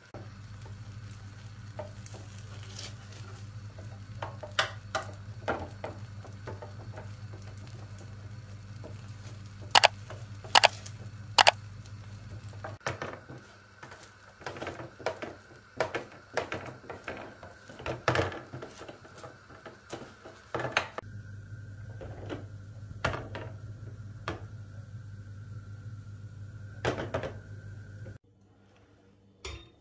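A metal spatula scraping and tapping across an aluminium baking tray as butter is spread over its bottom, in scattered scrapes and clicks with three sharp clacks a little before the middle. A steady low hum runs underneath and stops near the end.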